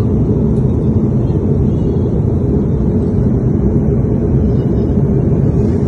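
Steady cabin noise of an airliner in flight: a loud, even, low rushing of engines and airflow.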